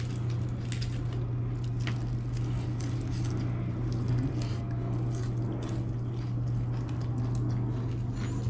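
A person chewing food, with scattered small clicks, over a steady low hum.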